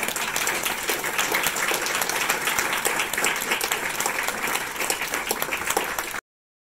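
Audience applauding steadily, cut off abruptly about six seconds in.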